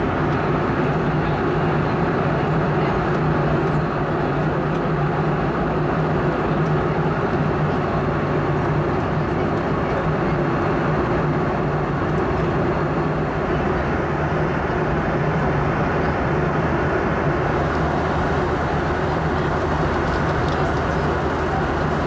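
Steady cabin noise inside a Boeing 717 airliner in flight: an even rush of noise with a steady low hum from its rear-mounted turbofan engines.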